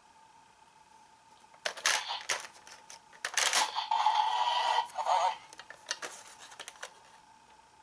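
Plastic clicks and clatter of a Kamen Rider Ryuki Dragvisor toy and an advent card being handled. A short electronic tone sounds from the toy around the middle.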